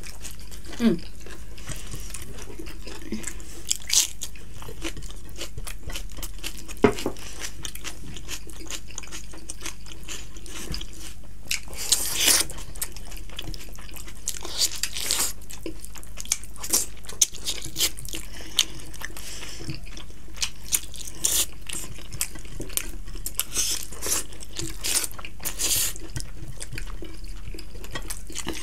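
Close-miked eating sounds from two people eating rice and chicken curry by hand: chewing and mouth smacks, with fingers squishing and mixing rice on the plates. Many short clicks come irregularly throughout, over a steady low hum.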